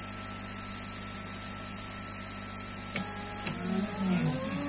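Steady hum and hiss of the laser's air-assist pump. About three seconds in, the CNC 3018's stepper motors start driving the laser head, whining in pitches that glide up and down as it traces the cut.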